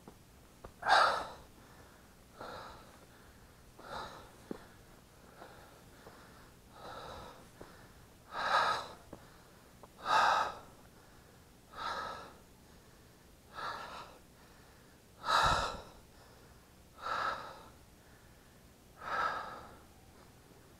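A person breathing hard from the exertion of climbing, close to the microphone: loud, rhythmic breaths, one about every one and a half to two seconds.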